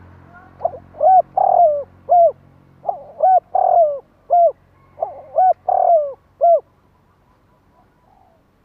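Spotted dove cooing: three phrases of four or five hooting notes, each phrase with one drawn-out note, about two seconds apart.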